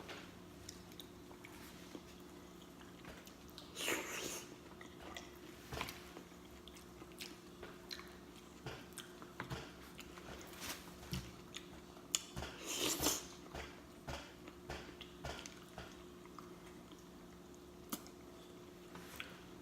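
Close-miked mukbang eating: a person biting and chewing with many small mouth clicks and smacks. Two louder noisy bursts come about 4 s and 13 s in.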